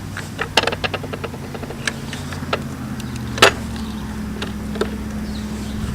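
Low-profile rapid-pump floor jack being pumped to force a pallet slat up: irregular clicks and knocks from the jack and the straining wood, with one louder crack about three and a half seconds in, over a steady low hum.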